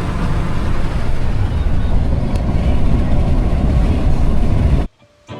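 Steady road and engine noise of a pickup truck driving, heard from inside the cab and heavy in the low end; it cuts off suddenly near the end.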